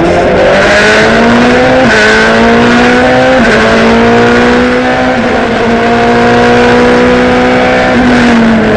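Ferrari 430 GT2's V8 racing engine at full throttle, heard from inside the cockpit, its pitch climbing and stepping down at three quick upshifts about 2, 3.5 and 5 seconds in, then holding high. Near the end the revs fall as the driver comes off the throttle for the next corner.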